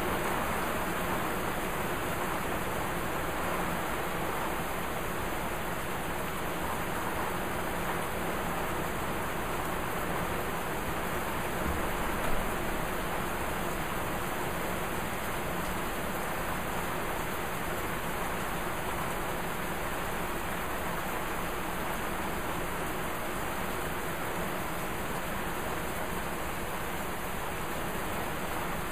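Heavy rain falling steadily, an even hiss with no let-up, and one brief tap about twelve seconds in.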